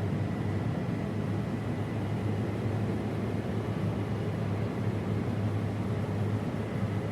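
Case IH 8250 combine running steadily while harvesting wheat: a constant low machine drone with a faint steady high whine over it.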